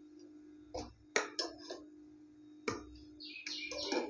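A metal ladle knocking and scraping against a metal cooking pot while stirring a simmering vegetable curry: a few sharp clinks spread across the first three seconds, then a longer stretch of scraping and stirring near the end, over a steady low hum.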